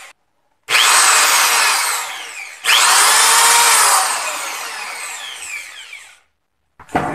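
Corded electric drill motor, just repaired, triggered twice and working again. Each run starts at full speed and winds down with a falling pitch after the trigger is released. The second run, about two seconds in, coasts down over roughly three seconds.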